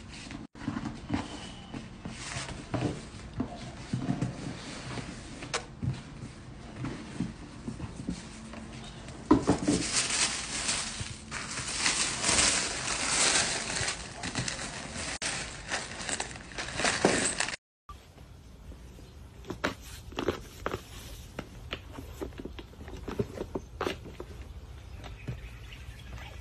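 Hand-handling sounds of a gift-box unboxing: ribbon and cardboard box handled with soft taps and scrapes, then tissue paper rustling for several seconds. After an abrupt cut, sparser clicks and taps as another box is opened.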